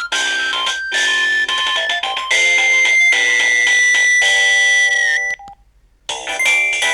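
Built-in ringtone melodies of a Samsung SGH-E330N mobile phone: a synthesized tune with several notes sounding at once, which stops about five seconds in; after a short gap the next tune begins.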